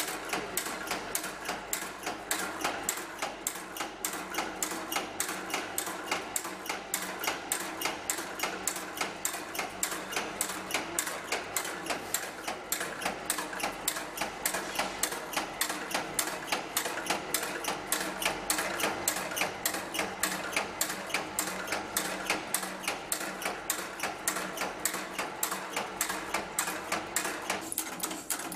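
Automatic packing-clip making machine running, with a fast, even, steady rhythm of mechanical clacks as it forms clips.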